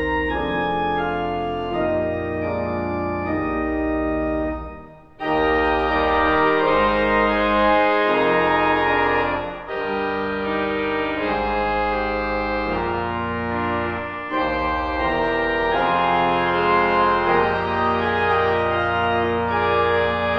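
Organ postlude: sustained chords moving every second or two, with a short break about five seconds in before the music resumes.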